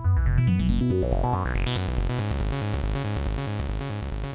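Electronic synthesizer music with a pulsing bass beat and a rising sweep in the first two seconds, slowly fading out near the end.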